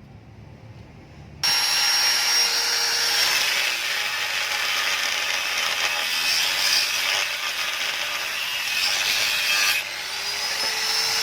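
Power cutting tool, likely an angle grinder, cutting into the steel shell of a motorcycle exhaust muffler to open it up. It starts about a second and a half in with a high whine over a harsh grinding hiss and runs steadily. Near the end it eases off briefly and winds back up.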